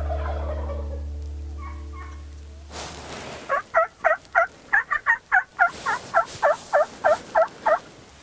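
Held music tones fade out. About three seconds in, a loud run of turkey yelps begins: roughly fifteen notes at about three or four a second, each dropping in pitch.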